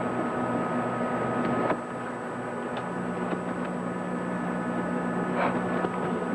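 Steady electrical hum over hiss, with a second, lower hum tone coming in about three seconds in and a few faint clicks.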